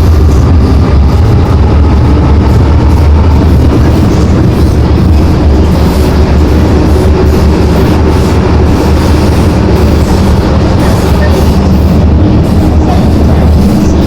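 MTR Island Line M-Train car running on the line, heard from inside the cabin: a loud, steady low rumble of wheels and running gear with a faint steady whine behind it.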